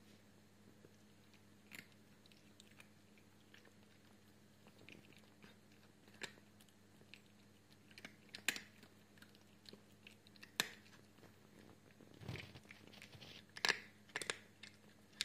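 A cat crunching dry food eaten from a hand: separate, crisp crunches, few at first and coming closer together near the end.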